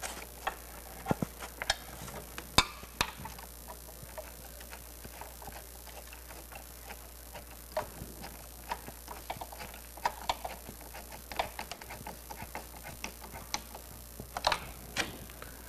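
Irregular light plastic clicks and ticks as EVAP vapor hoses are pushed on and plastic hose clamps are snapped shut by hand, with a sharper click about two and a half seconds in.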